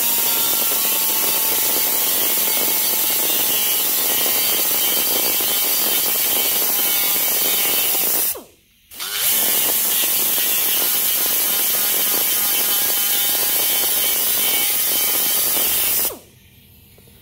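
A carbide burr spun by a power tool grinds into a wheel bearing's hardened-steel outer race stuck in a rear axle tube, cutting a groove so the race can be cracked out. It is a steady, loud grinding chatter that stops briefly about eight seconds in, runs again, and cuts off near the end.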